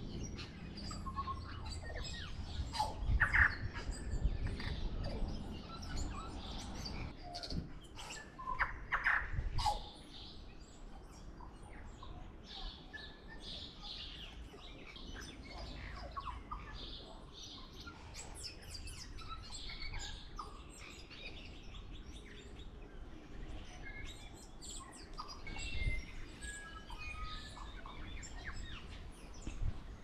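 Tui singing: a varied string of short whistled notes mixed with clicks, loudest about three and about nine seconds in.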